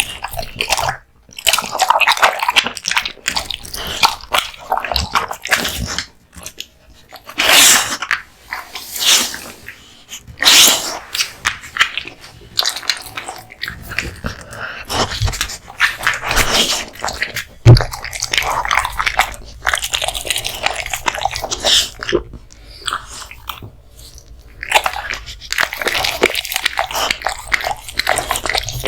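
American Bully dog chewing raw meat and bones: wet, irregular chomping and crunching bites through the stretch, with some louder crunches.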